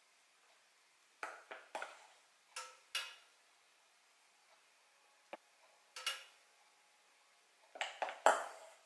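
A metal spoon clinking and tapping against kitchenware while thick batter is spooned out, in short clusters of sharp clicks, with the loudest group near the end.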